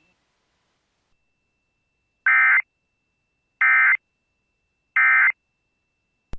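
Emergency Alert System end-of-message signal: three short bursts of SAME digital data tones, each under half a second and about 1.3 s apart, marking the end of the alert. A faint steady high tone lies underneath, and a sharp click comes at the very end.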